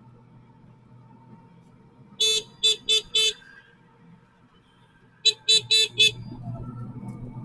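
A vehicle horn sounding two bursts of four quick toots, about three seconds apart, over the steady low running of the auto-rickshaw's engine, which grows louder near the end.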